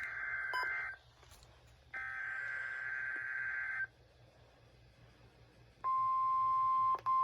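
NOAA Weather Radio Emergency Alert System weekly test: two buzzy bursts of SAME digital header data, each about two seconds long, followed about six seconds in by the steady 1050 Hz warning alarm tone.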